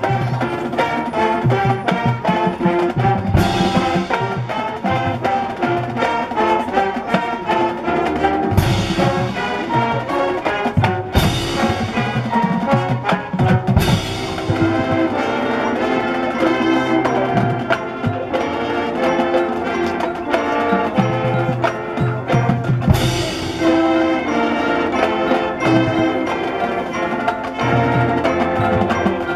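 High school marching band playing its field show: brass over drums and front-ensemble mallet percussion, with about five loud accented hits that ring out.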